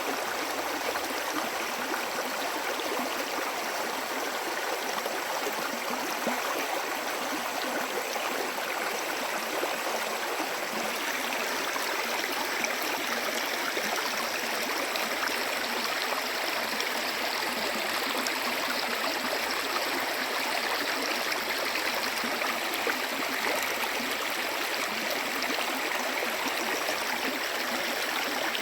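Steady rushing of a stream: an even hiss of running water with a fine splashing texture and little low rumble.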